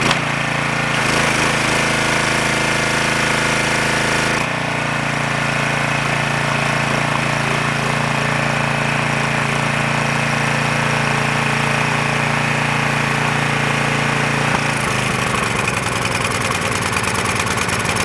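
Briggs & Stratton 6.75 single-cylinder engine on a Craftsman 2500 PSI pressure washer running steadily on its own, after a carburetor cleaning that cleared a clogged main jet. Its note shifts about four seconds in and becomes rougher near the end.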